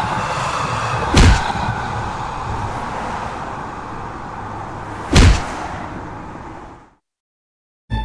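Cartoon sound effects: a steady noise that slowly fades and stops about seven seconds in, broken by two heavy slams, one about a second in and one about five seconds in.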